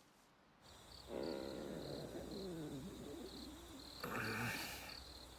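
Crickets chirping in a steady, evenly spaced pattern, starting about half a second in, with a low wavering sound underneath.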